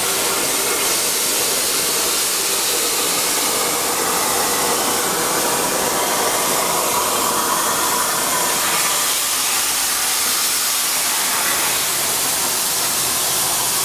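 Hypertherm Powermax85 plasma torch on a CNC plasma table cutting steel plate: the arc gives a steady hiss. This is the final outside cut that frees the part from the sheet.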